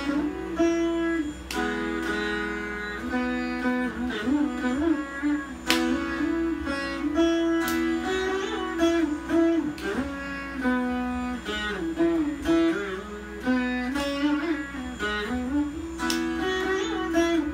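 Saraswati veena played solo in Carnatic style, in raga Mohanam: a run of plucked notes, many of them sliding and bending in pitch between frets (gamakas).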